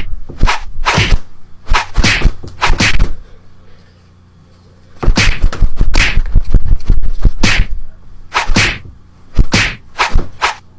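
A quick series of sharp whacking hits, several a second, broken by a pause of about a second and a half near the middle.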